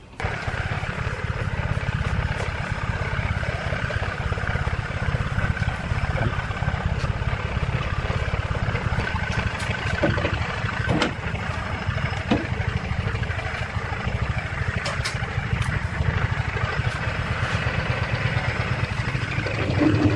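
Steady mechanical running noise with a few sharp knocks in the middle as the glued firewood-stick blank is fitted onto a wood lathe. Near the end, the lathe's motor starts and adds a steady hum as the blank spins.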